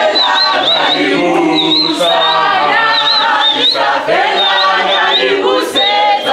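A group of people singing together without instruments, a traditional wedding song. A high warbling call repeats over the singing.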